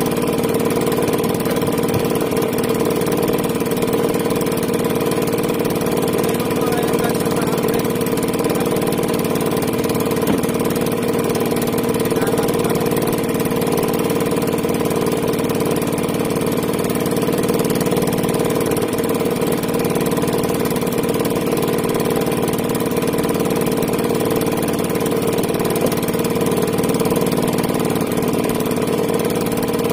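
A small engine aboard a fishing boat running steadily at one even speed, a constant hum that does not change.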